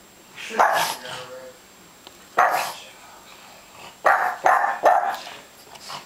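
Pug barking in about five sharp barks, the last three in quick succession: alarm barking at foil balloons the dog is afraid of.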